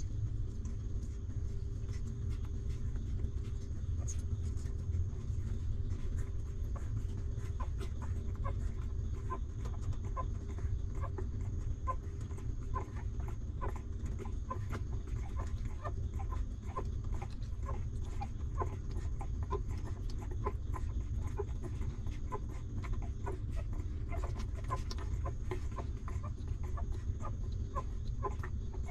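Newborn puppies giving short, high little squeaks while they nurse, one or two a second, coming often after the first several seconds, over a steady low rumble.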